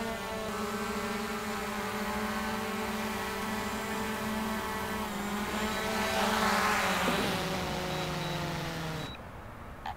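DJI Mavic Air 2 quadcopter propellers whining steadily as it comes in to land. A rush of air swells about six to seven seconds in, then the motors cut off suddenly about nine seconds in as it touches down.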